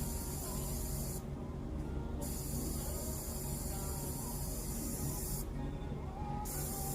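Dr.Isla N8 handheld ultrasonic mesh nebulizer running, a steady hiss as it sprays mist. The high part of the hiss drops out for about a second, twice.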